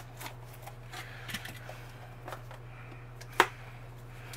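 Light rustles and small clicks of a small cardboard box being handled and turned over, with one sharp click about three and a half seconds in.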